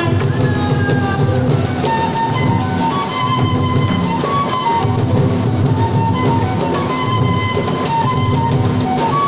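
Jharkhandi folk dance music: a mandar barrel drum and jingling percussion keep a quick, even beat, about four strokes a second, under a melody that moves in short steps.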